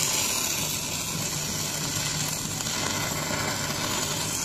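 Stick-welding arc from an EDON MMA-250S inverter welder burning a 10-gauge electrode: a steady crackling sizzle over a faint low hum.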